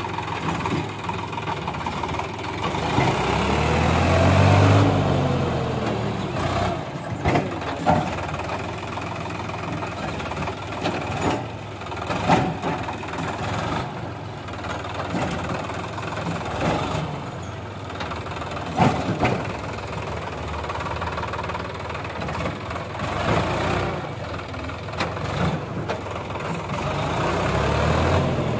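Sonalika tractor's diesel engine running while it hauls a tipper trailer over rough dirt. It revs up and back down about four seconds in and again near the end. Several short sharp knocks sound in between.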